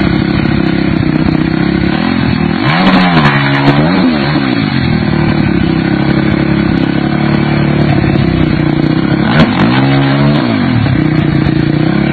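Dirt bike engine running steadily and revved twice, rising and falling in pitch about three seconds in and again near ten seconds, as the bike sits bogged down in a mud hole.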